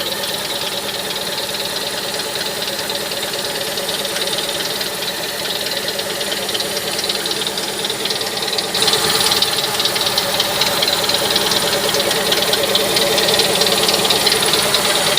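Toyota 2E 1.3-litre four-cylinder petrol engine idling steadily, running on freshly fitted spark plug wires; the idle is good. About nine seconds in the engine sound gets louder and brighter and stays so.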